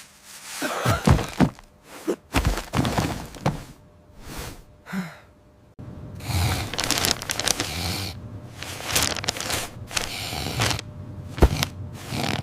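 Books falling off a shelf as cartoon sound effects: a run of separate thuds and knocks, then a denser clatter from about six seconds in.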